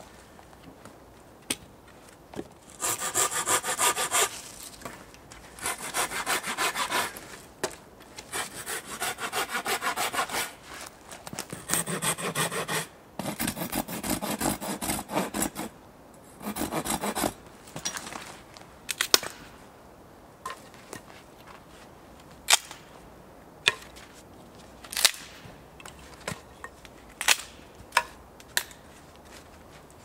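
Saw cutting through firewood in a run of back-and-forth rasping strokes, then a few single sharp snaps of wood.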